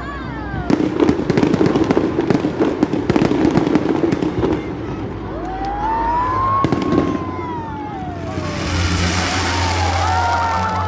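Fireworks display: a dense run of crackling bursts for the first few seconds, then long whistling tones gliding up and down, with a hiss and a low steady hum near the end.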